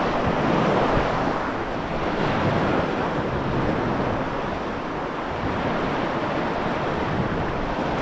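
Wind blowing across the microphone with a low, steady rush, over small sea waves washing against the shore.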